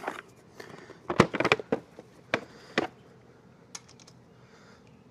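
Metal sockets and a socket wrench clicking and clinking in short, scattered bursts, with a quick cluster about a second in, as a 10 mm socket is fitted to loosen a screw.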